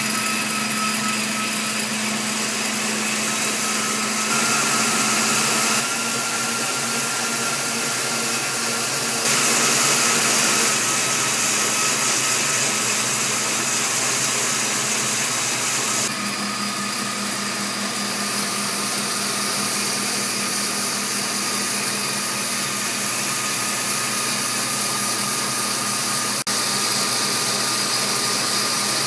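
Hand-made air coffee roaster running: a steady rush of blown air with a hum, its loudness shifting in steps a few times.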